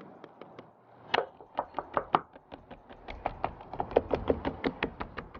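An irregular run of sharp clicks and knocks that quicken to about five or six a second in the second half, from hands working the roof rack's mounting hardware into place on the Tacoma's roof.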